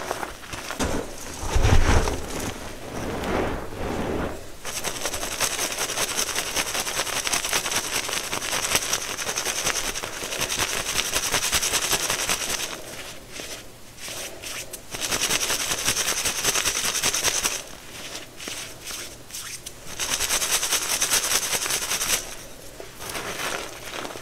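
Hands squeezing and crushing soft gym chalk powder, with a dull thump about two seconds in. Then chalk shaken through a metal mesh sieve: a dense crackling hiss in three long stretches with short pauses between.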